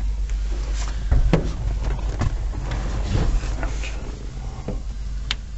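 Scattered knocks, clicks and rubbing from hands and tools working at an old pickup's sliding back window, over a steady low hum. The loudest knock comes about a second in, and a sharp click comes near the end.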